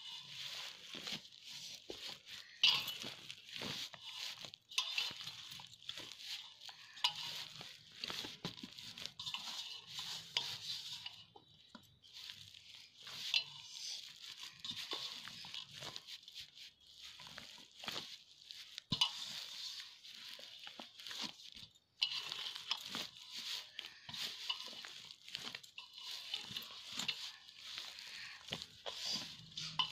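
Hands kneading stiff maida dough in a steel plate: a dense, irregular run of squishing, crackling and rustling, with small clicks of the hands and bangles against the metal. It pauses briefly twice.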